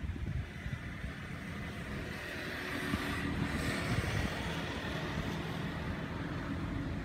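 Road traffic passing: a motor vehicle goes by, swelling and fading around the middle, over a steady low rumble.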